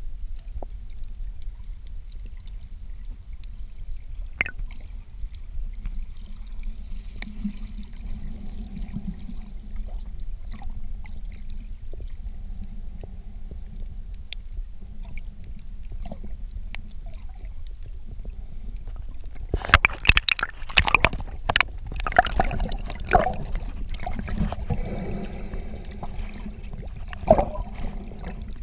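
Underwater water noise heard through a camera housing: a low steady rumble, with a burst of splashing and bubbling crackles about twenty seconds in and another sharp splash near the end.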